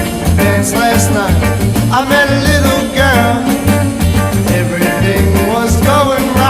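1950s rock and roll record playing: a bass line steps through short notes under a lead part that slides and bends in pitch.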